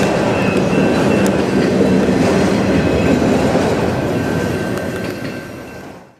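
Freight train of autorack cars rolling past on the rails, a steady dense noise of wheels and cars in motion. It dies away over the last second or so.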